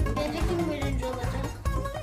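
Background music: a plucked string melody over a steady bass beat.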